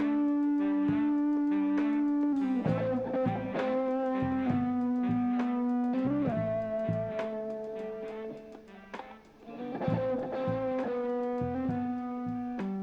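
Background music: a groovy 1970s-style track led by guitar over a steady bass beat, with a short lull about two-thirds of the way in.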